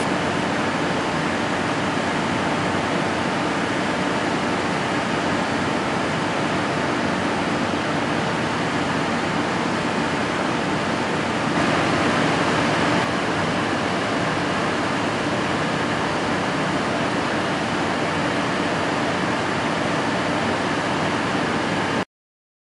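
Steady rushing of air in a paint spray booth while a toy horse is spray-painted. It grows briefly louder for about a second near the middle as a burst of spray passes, and the sound cuts off abruptly near the end.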